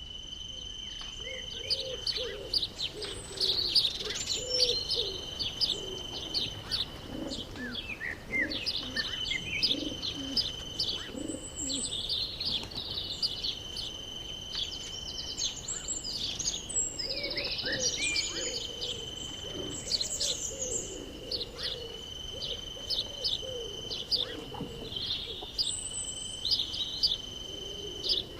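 Birdsong: many short high chirps and calls overlapping, with doves cooing low and repeatedly underneath. A steady high-pitched ringing tone runs under the chorus, breaking off briefly every few seconds.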